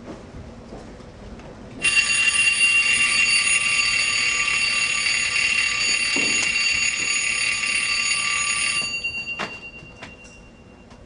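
An alarm bell ringing loudly and continuously, starting suddenly about two seconds in and cutting off about seven seconds later.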